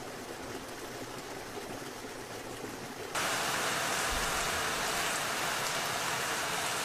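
Steady rushing noise of water, a soft hiss at first, then louder and fuller from about three seconds in.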